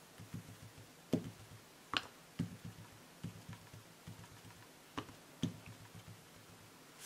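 Ink dauber dabbing ink through a plastic stencil onto paper: faint, irregular soft taps, a few a second apart.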